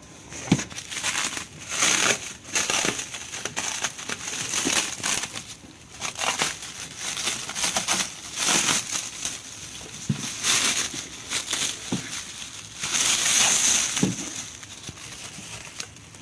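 Clear plastic bag crinkling and rustling in irregular bursts as hands open it and handle the part packed inside.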